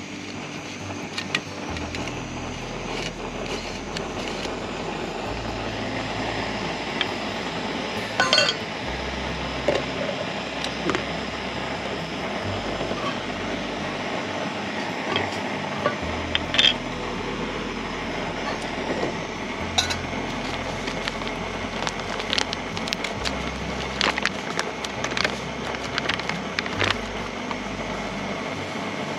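Camp dishes and utensils clinking and knocking now and then over a steady hiss, with a few louder clanks.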